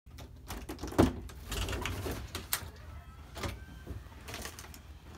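An interior door opening and someone stepping out: a sharp thump about a second in, then a run of knocks, shuffles and clothing rustles over a low steady hum.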